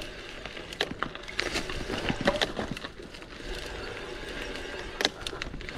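A bicycle rattling over a rough dirt and gravel trail: irregular sharp clicks and knocks over a steady hiss of tyre and wind noise.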